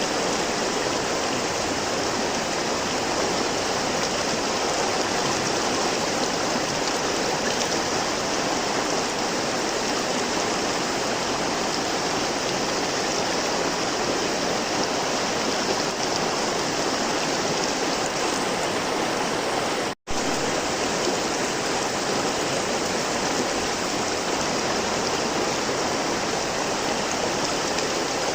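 River water flowing, a steady, unbroken wash of water noise that cuts out for an instant about two-thirds of the way through.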